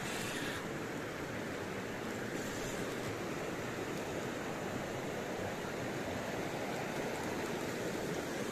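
Steady rushing noise of flowing river water, even throughout.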